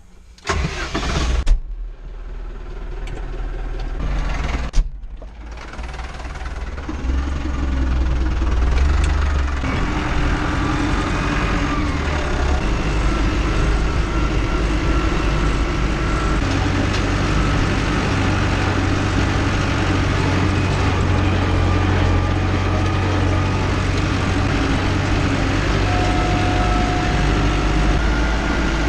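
Tractor engine running steadily. There are two sharp knocks near the start, and the engine grows louder about seven seconds in.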